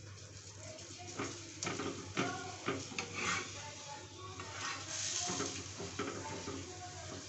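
Stuffed paratha frying in oil on a hot iron tawa, with a metal spatula scraping and knocking against the pan as the paratha is flipped and pressed down. A louder hiss of sizzling comes about five seconds in, as the freshly turned side hits the hot oil.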